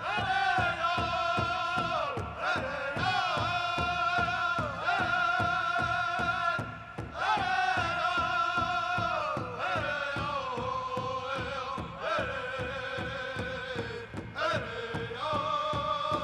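Pow wow drum group singing a Southern-style dance song: several voices in high, held notes over a steady, even beat on a large powwow drum. The sung phrases start high and step down in pitch.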